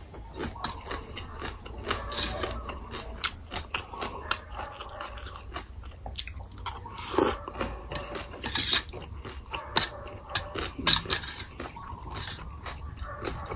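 Close-miked chewing and crunching of papaya salad and crisp raw morning glory, with wet mouth sounds and irregular clicks and crackles. A metal spoon clicks and scrapes on the metal serving tray.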